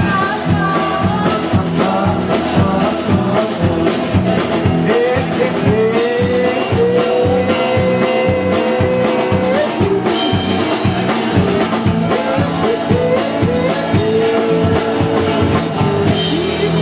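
Live country band playing an instrumental passage, a steady beat under a lead line of long, bending held notes.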